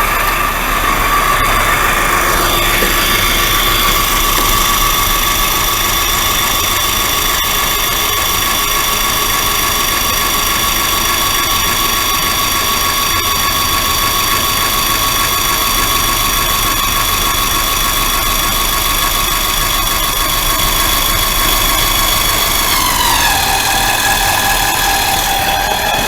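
12V electric hydraulic car jack's motor and pump running steadily with a whining hum as it lifts a car. Near the end its pitch drops a step and it carries on at the lower pitch.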